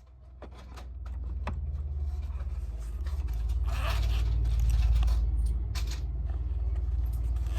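A low rumble that builds up about half a second in, with scraping and a few clicks over it.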